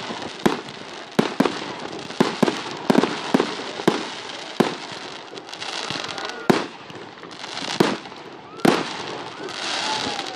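Fireworks display: a rapid string of sharp bangs from bursting shells, several a second for the first few seconds, then fewer, more widely spaced bangs, with a crackling hiss near the end.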